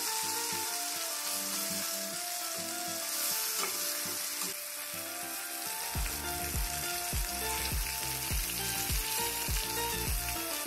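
Pearl spot fish (karimeen) frying in hot coconut oil in a steel pan, a steady sizzle. Background music with a melody plays over it, and a regular beat joins about six seconds in.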